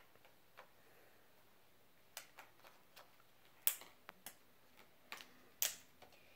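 Scattered clicks and taps of small toys and their packaging being handled, a few seconds apart, with two louder clicks in the second half.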